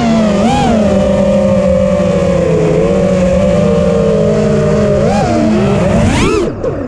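FPV quadcopter's motors and propellers whining steadily, the pitch swooping up and back about half a second in and again around five seconds. Near the end the pitch shoots up, then the throttle is cut briefly before the motors spool up again.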